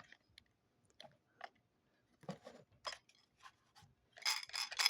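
Plastic Lego pieces being handled and fitted: scattered small clicks, with a denser run of clicking and rustling near the end.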